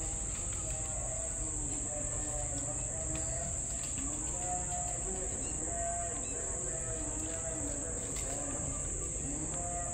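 Crickets chirping in a continuous high-pitched trill, over a steady low background rumble.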